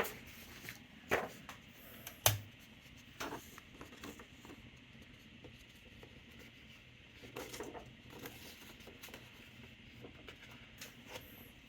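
Faint scattered clicks and knocks from a Smith-Corona Galaxie 12 manual typewriter as a sheet of paper is fed into it, the loudest a dull knock about two seconds in, over a steady low hiss.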